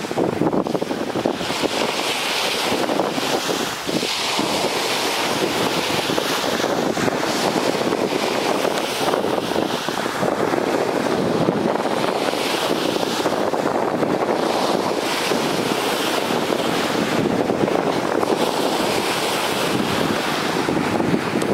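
Small surf breaking and washing up a sandy beach, a steady rush whose hiss swells and eases every few seconds, with wind buffeting the microphone.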